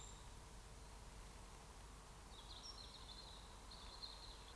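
Near silence of still woodland, with faint, high songbird chirps: a brief one at the start and a longer twittering run from about two seconds in until near the end.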